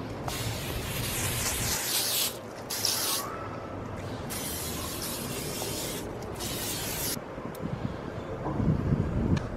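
Aerosol can of Pam grill cooking spray hissing in four bursts as oil is sprayed onto grill grates. The first and third bursts are the longest. A few soft low thuds follow near the end.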